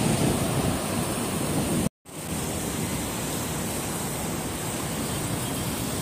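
Steady noise of city street traffic with wind on the microphone. It is broken by a brief dropout at a cut just under two seconds in, then carries on as an even street hiss.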